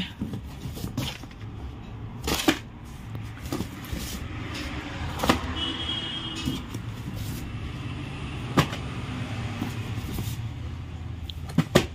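Cardboard cartons and plastic-wrapped light packets being handled, with a handful of sharp knocks spaced a few seconds apart (a double one near the end) over a steady low rumble. A short high beep comes about halfway through.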